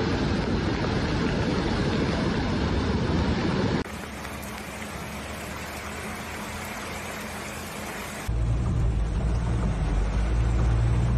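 Muddy floodwater rushing past in a steady, noisy torrent, heard across three cuts of phone footage: loud at first, quieter about four seconds in, then louder and deeper from about eight seconds in.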